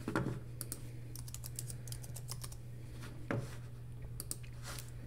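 Computer keyboard typing in scattered keystrokes, with a couple of louder taps near the start and about three seconds in, over a low steady hum.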